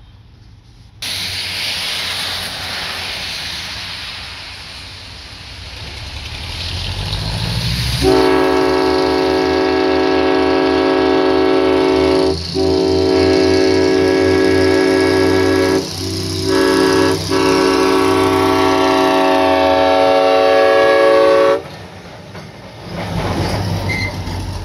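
Small diesel switcher locomotive approaching a road crossing, its engine rumble growing, then its multi-chime air horn blowing the crossing signal: long, long, short, long. The horn cuts off a few seconds before the end, leaving the engine rumble.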